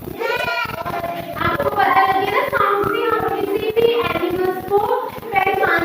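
Children's voices singing or chanting together, one phrase running into the next.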